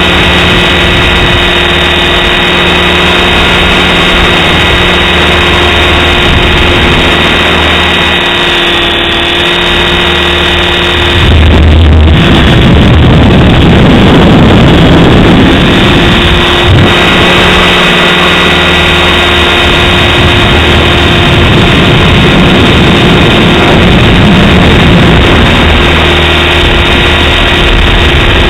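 Align T-Rex 550 electric RC helicopter flying, its motor, gears and rotor giving a steady whine at a governed, flat-lined headspeed. Wind buffets the microphone throughout, and a strong gust about eleven seconds in drowns the whine in rumble for several seconds.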